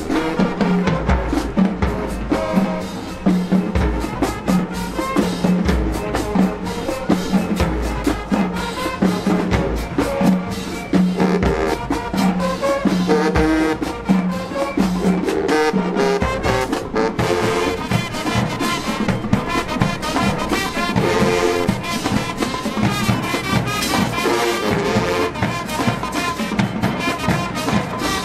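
High school marching band playing, with trumpets and trombones over drums and a low bass pulse. The low bass and drum pulse drops out about halfway through, and the higher brass carries on.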